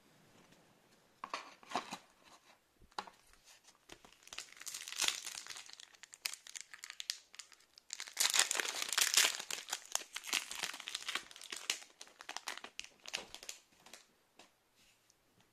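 Foil wrapper of a Pokémon card booster pack crinkling and tearing as it is opened, in several bursts, the loudest about halfway through.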